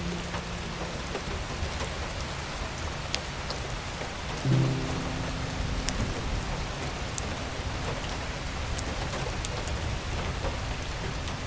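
Wood fire crackling in a fireplace: a steady hiss with scattered sharp pops. Soft background music plays sparsely over it, with a chord sounding about four and a half seconds in and ringing for several seconds.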